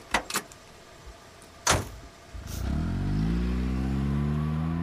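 Taxi sound effect: two quick clicks and a car door slamming shut, then the car's engine pulling away, its pitch rising steadily as it accelerates.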